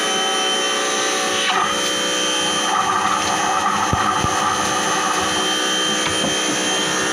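A power tool's electric motor running steadily at constant speed.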